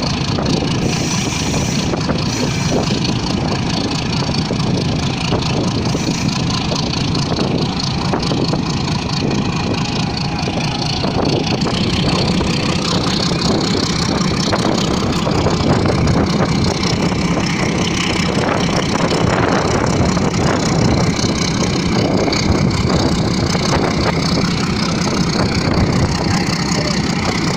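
Passenger train running, heard from on top of a carriage: a loud, steady rumble with continuous rattling of the wheels and cars on the rails.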